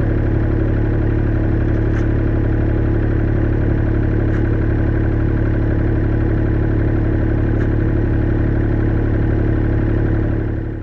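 Caterpillar excavator's diesel engine running steadily, heard up close beside its hydraulic control valve bank, with a low hum and a few faint ticks; it fades out near the end.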